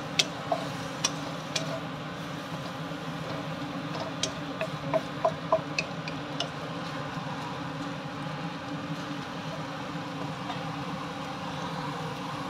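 Wooden spatula knocking and scraping against a nonstick wok while squid is stir-fried, a dozen or so short sharp clicks in the first half that then stop. A steady low hum runs underneath throughout.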